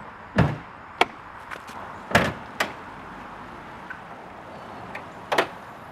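Five sharp clunks and knocks spread over a few seconds, the loudest about half a second and two seconds in.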